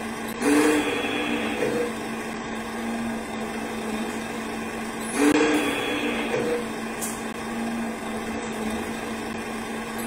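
1/14-scale radio-controlled recovery truck model working its boom winch, giving a steady mechanical hum. The hum rises to a louder surge with a brief hiss about half a second in and again about five seconds in.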